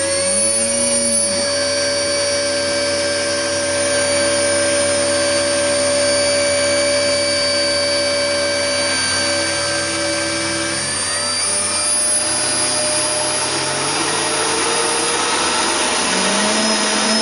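Model PHM hydrofoil's waterjet propulsion running on a static test: a steady, high motor whine with its cooling blower, over the hiss of the jet spraying out of the stern. The spray hiss grows stronger about halfway through, and the whine shifts in pitch near the end.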